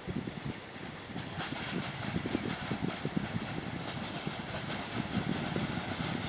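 PKP class Ol49 steam locomotive approaching with a train, its exhaust chuffing and growing louder as it nears.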